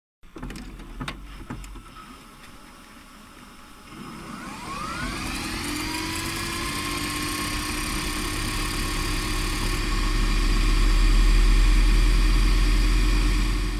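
A few clicks, then a machine winding up: from about four seconds in, a rising whine levels off into a steady hum over a deep rumble that grows louder toward the end.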